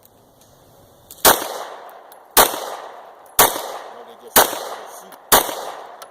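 9mm handgun fired five times in steady slow fire, about one shot a second starting just over a second in, each shot trailing off in an echo.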